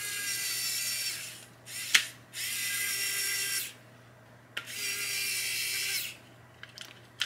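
Pen-style electric screwdriver whining in three short runs as it drives small screws, with a sharp click between the first two runs.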